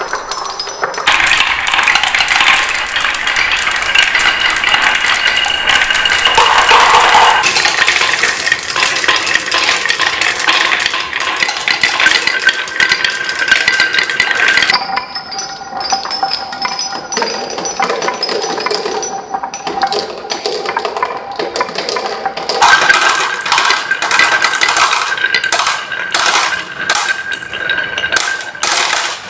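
Many marbles rolling and clattering down marble run tracks, a dense run of clicks and clinks with some ringing tones. The sound changes abruptly about a second in, about halfway through and again about three-quarters through, as different track sections are heard.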